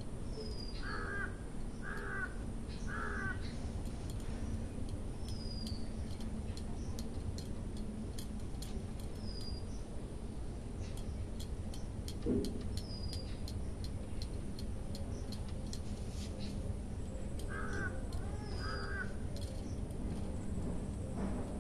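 Light, irregular crackling clicks of hair cracking during a head massage, under a steady low background noise with one dull thump about halfway. Outdoors a bird calls in two sets of three short calls, near the start and near the end, and a thin falling whistle repeats every few seconds.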